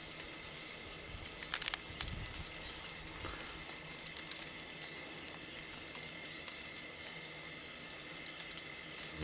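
Steady high buzzing hiss of thousands of beetles swarming on a tree, sounding like a swarm of bees. A few faint clicks come about a second and a half in.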